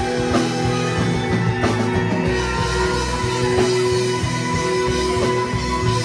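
Live rock band playing: electric bass guitar, electric guitar, drum kit and keyboards together, with a heavy, steady bass line under held notes and drum hits.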